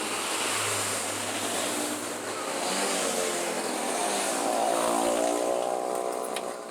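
Vespa Super 150's two-stroke single-cylinder engine running, revving up in pitch around the middle and easing off near the end.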